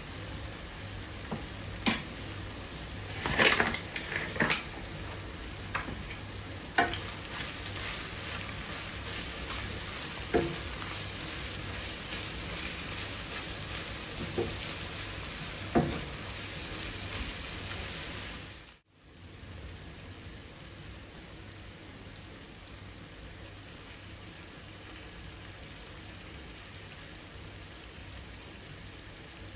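Lamb mince with flour sizzling in a frying pan as it is stirred with a wooden spatula, with several sharp knocks of the utensils against the pan in the first half. Cooking sounds drop out briefly about two-thirds through, then a quieter steady sizzle carries on.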